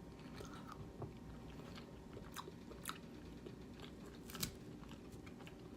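A person chewing a mouthful of food close to the microphone, with a few soft, sharp mouth clicks.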